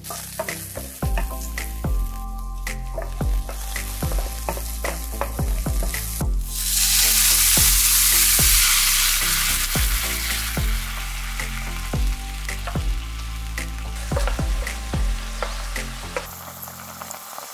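Garlic, ginger, chilies and lemongrass sizzling in hot oil in a pan as they are stirred. About six seconds in, sauce is poured in and hisses loudly for a few seconds, then settles to a quieter simmer with stirring.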